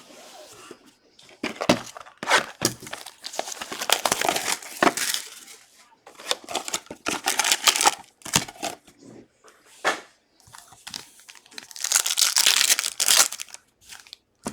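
Plastic wrapping of a box and packs of trading cards being torn open and crinkled by hand, in several bursts of rustling with sharp ticks: the loudest about two to five seconds in and about twelve to thirteen seconds in.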